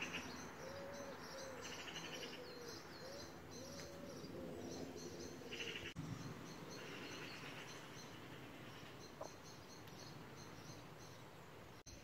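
Garden birdsong: several small songbirds chirping and trilling, with a low, repeated cooing in the first few seconds.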